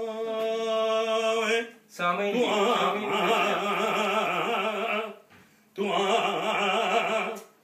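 A man singing unaccompanied in a South Asian classical style: a long held note with a slight wavering, then ornamented runs that bend up and down, broken twice by pauses for breath.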